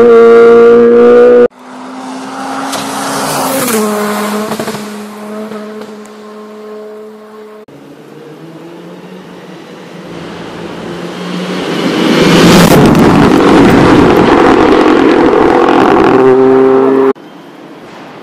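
Rally cars running flat out on a stage, engines revving high with abrupt gear changes, in several short cut-together passes. About twelve seconds in, one car comes close and its engine and tyre noise grow loud before cutting off suddenly near the end.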